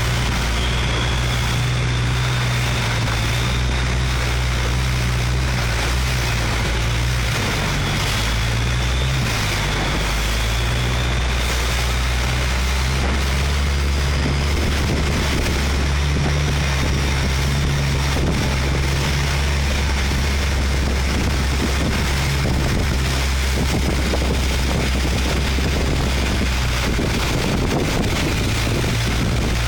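A boat's engine running steadily under way, with wind rushing on the microphone.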